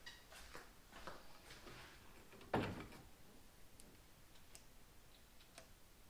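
Faint clicks and light taps of metal parts being handled on an engine's intake manifold as a carburetor gasket and spacer are fitted, with one sharp knock about two and a half seconds in.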